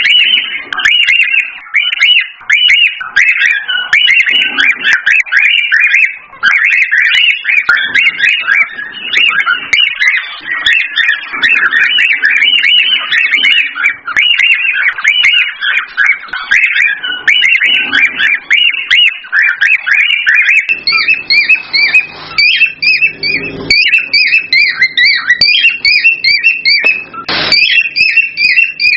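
Cockatiels chirping and whistling in rapid, continuous runs. About two-thirds of the way through, a second, higher series of quick repeated chirps joins in.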